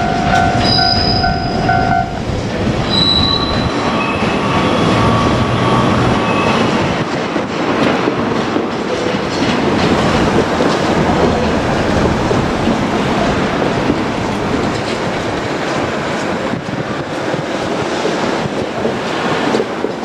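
JR Kyushu 817 series electric train running over pointwork, its wheels squealing shrilly on the curves and clacking over the switches and rail joints, with the noise slowly fading as it draws away. A level-crossing bell rings steadily and cuts off about two seconds in.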